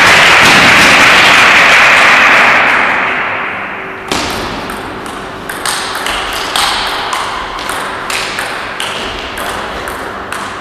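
A loud, even rushing noise fades away over the first three seconds. From about four seconds in, a table tennis rally runs: the ball clicks off the paddles and the Donic table about two to three times a second.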